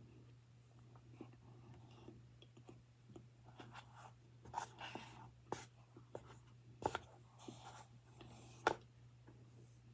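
Close-up mouth sounds of someone eating baby powder: soft dry crunching and chewing, with a few sharper crunches in the second half.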